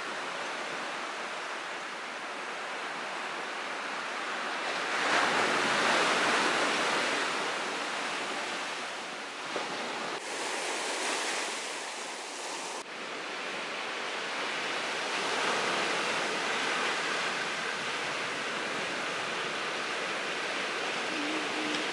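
Sea surf washing onto a beach, a steady rush that swells louder about five seconds in and breaks off abruptly twice in the middle.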